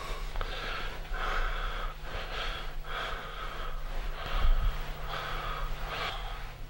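A person breathing quickly and heavily, in regular rasping breaths about one to two a second, over a low steady hum.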